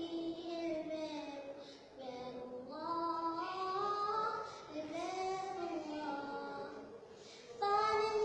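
Young girl singing a nasheed solo and unaccompanied, her voice drawing out long notes that bend and waver in pitch. She breaks briefly about two seconds in and again around seven seconds, then comes back in louder near the end.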